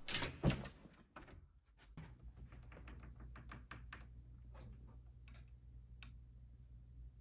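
An interior door being opened: a rustling burst with a thunk about half a second in, followed by scattered light clicks and taps.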